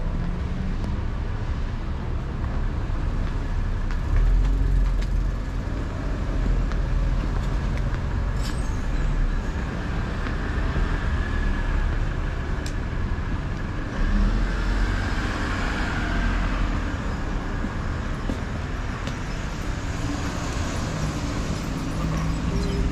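Street traffic ambience: a steady low rumble of passing cars, swelling louder about four seconds in and again around fourteen seconds.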